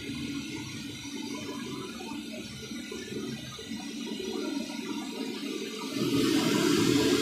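Hot oil sizzling as potato sticks deep-fry in a wok, quieter at first and much louder from about six seconds in.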